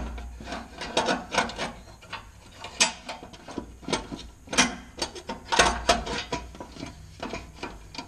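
Irregular clicks and knocks of a parking/turn-signal light and its bracket being fitted back in place by hand behind a car's front bumper.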